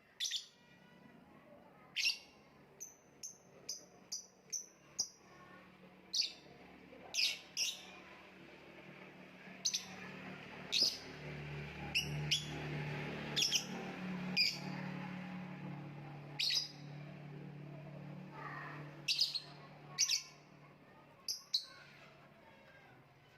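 Lovebird giving short, sharp, high-pitched chirps at irregular intervals, with a quick run of them a few seconds in. A low steady hum sits underneath through the middle.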